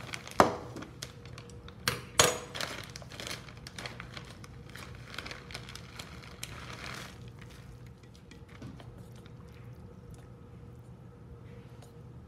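Two sharp knocks against a stainless steel bowl, about half a second and two seconds in. Then a plastic noodle bag crinkles for several seconds as fresh rice noodles are tipped out of it into the bowl of hot water, and it is quieter after that.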